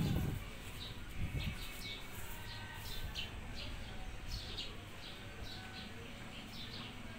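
Small birds chirping in short, high, falling notes, about three a second, with a soft low bump about a second in.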